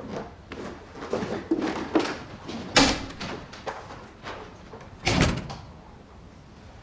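A door being opened and closed. Light knocks come first, then a sharp clack near three seconds in, and the door shuts with a heavy low thud a little after five seconds.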